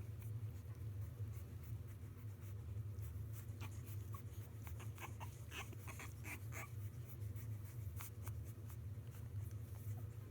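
Soft, irregular scratching and shuffling as a French bulldog puppy moves about and is handled, with a few faint short squeaks in the middle, over a steady low hum.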